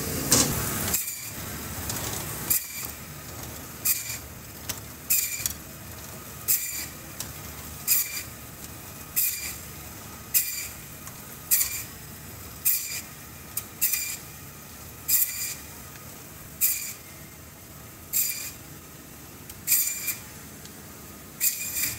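Meat band saw running steadily while slicing a beef short loin into porterhouse and T-bone steaks, the blade giving a short high-pitched burst of noise as it passes through the bone with each slice, repeating about every second and a quarter some fifteen times.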